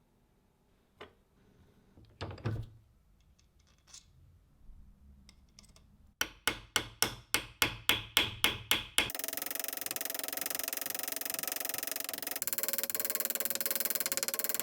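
A few light knocks, then a quick run of about a dozen sharp tapping strikes, like a small hammer on metal, at about four a second. Near the middle the tapping gives way to a steady, dense mechanical noise.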